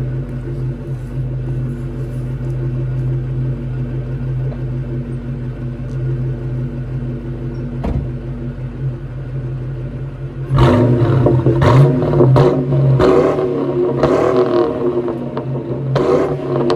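2001 Ford Mustang GT's 4.6-litre V8 idling steadily, heard at the tailpipes. From about ten seconds in it is revved in a run of throttle blips that are louder and rougher. The engine is running after its blown-out spark plug was re-threaded into the cylinder head.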